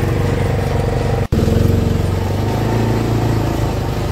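Side-by-side UTV engine running at a steady pace while driving over snow, heard from on board. The sound cuts out for an instant about a second in, then carries on.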